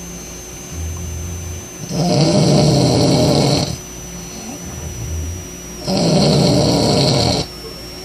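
A man snoring loudly in his sleep: two loud snores about four seconds apart, each about a second and a half long, with a quieter low rumble of breath between them.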